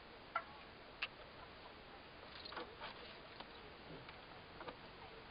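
Two sharp clicks in the first second inside the quiet cabin of a stationary Tesla Roadster, followed by a few faint ticks.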